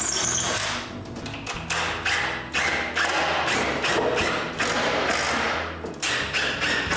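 Cordless drill/driver driving screws into a wooden frame in short bursts, starting and stopping several times.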